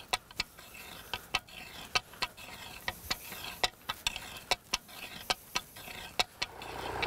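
Long-handled hoe skimming dry, crusted soil between transplants, held loosely and pulled quickly as if raking: a run of sharp, irregular ticks and scrapes, about three a second, as the blade catches clods and grit.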